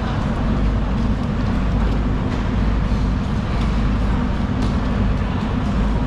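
A large engine running steadily with a low, even rumble under a haze of busy background noise.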